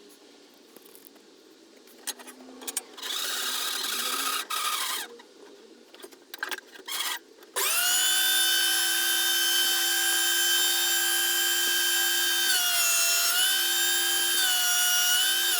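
Scraping and knocking of work on a mahogany neck blank, then a power tool starts about halfway through and runs with a steady high whine. Its pitch dips briefly under load near the end, and it is switched off at the very end. This is the blank being trued flat for the fingerboard joint.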